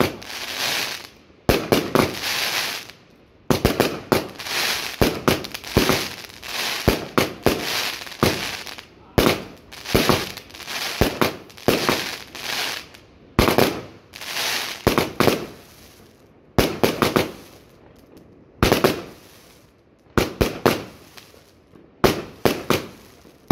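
New Year's fireworks going off densely: sharp bangs in quick clusters, each followed by a short crackling, hissing tail, continuing without a break.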